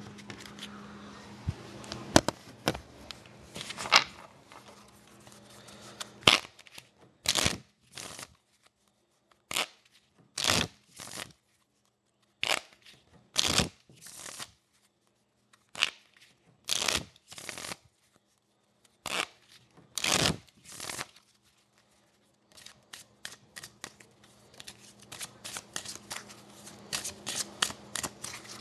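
A deck of playing cards being shuffled by hand: short shuffles a second or two apart, then a quicker run of light clicks near the end.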